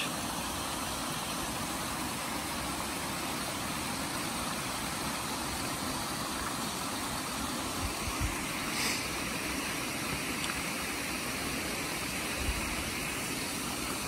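Steady rush of water flowing over a rock ledge at the lip of a waterfall, with a couple of faint bumps partway through.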